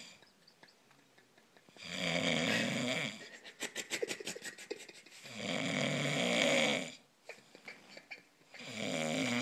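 Heavy snoring in slow rhythm: three long, loud rasping snores, the first about two seconds in, the next midway and the last near the end, with crackly, fluttering breathing between them.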